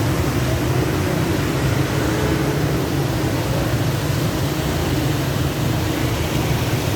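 Floodwater rushing through a street: a loud, steady rush of water.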